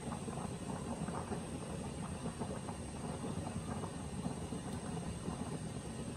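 Steady low rumble of a lit gas stove burner, with faint small clicks from handling a bottle and spoon.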